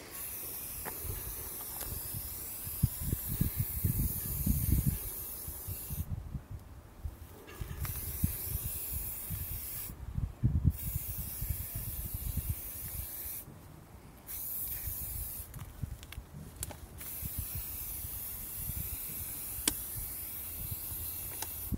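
Aerosol spray-paint can hissing in long sprays, broken by a few short pauses, while paint is sprayed onto a wall. A low rumble comes and goes underneath.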